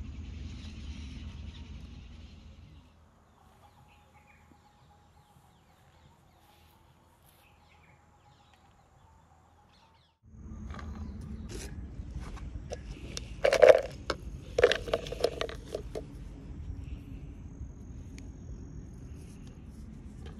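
Outdoor ambience of wind rumbling on the microphone with faint bird chirps. It drops to near silence for about seven seconds, then returns suddenly, with a cluster of loud knocks and rustles a few seconds later.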